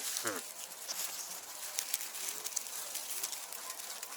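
Farm animals in a straw-bedded shed: a short call falling in pitch right at the start, then faint scattered clicks and rustling with a couple of soft brief calls.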